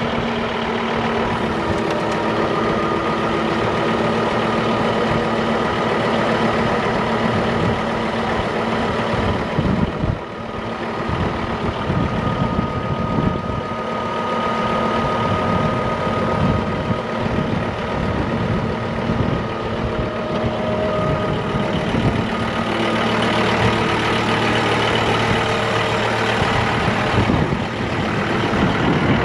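John Deere 5075M tractor's four-cylinder diesel engine idling steadily. Its note shifts a little about two-thirds of the way through.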